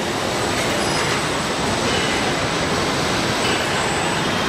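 Steady, dense machinery noise of an automated car body-shop line of industrial robots, with a thin high whine and a few light ticks.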